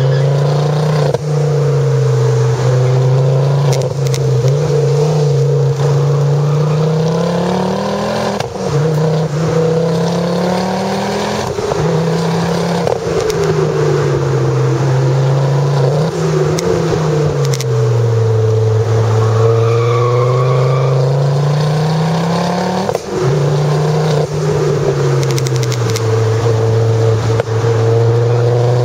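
Ford Focus RS with a Milltek aftermarket exhaust driven hard: the engine and exhaust note climbs with the revs and drops sharply at each upshift, several times over, with a slower fall and long climb in between.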